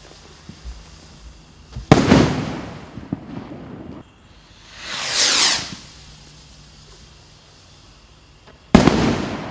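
Sky Hunter firework rockets: one bursts with a sharp bang and a trailing rumble about two seconds in, the next lifts off with a rushing whoosh around five seconds in, and it bursts with another sharp bang near the end.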